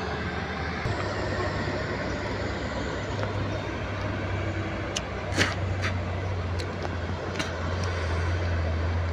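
Diesel truck engines running as trucks approach on a winding road: a steady low drone over road noise, growing a little louder near the end, with a few sharp clicks in the middle.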